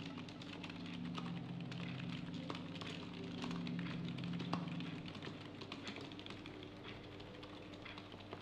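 Quiet office ambience: a steady low hum that grows fainter about five seconds in, with scattered light clicks and taps.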